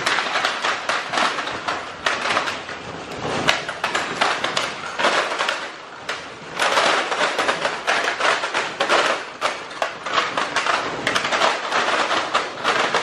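Packaged soft-plastic swimbaits pouring out of a cardboard box onto a concrete floor and a person lying on it: a continuous clatter of plastic and card packs slapping and sliding. It eases off briefly about six seconds in, then pours again.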